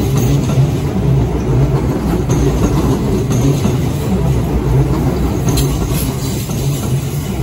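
Kintetsu 9820-series electric train running past along the station platform: a steady, loud rumble of the cars on the rails.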